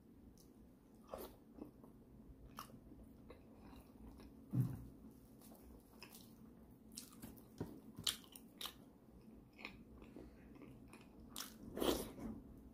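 Close-miked chewing and mouth sounds of a man eating braised pork leg with his fingers: scattered wet clicks and smacks, with a low thump about four and a half seconds in and a louder burst near the end.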